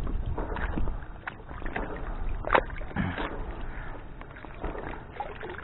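Water sloshing against the hull of a small fishing boat, with scattered knocks and clicks from the boat and gear; a sharp knock about two and a half seconds in is the loudest.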